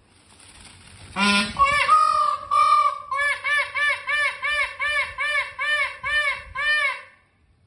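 Peacock (Indian peafowl) calling: a longer opening note, then a fast run of short, arched, nasal notes at about three a second, which stops abruptly.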